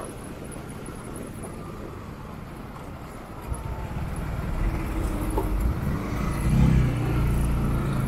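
Road and wind noise from a moving motorcycle ride in traffic. About three and a half seconds in, a vehicle engine grows steadily louder and stays loud to the end.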